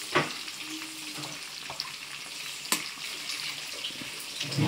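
Marinated chicken pieces deep-frying in hot oil in a pan, a steady sizzle, with two sharp clicks, one near the start and one a little past halfway.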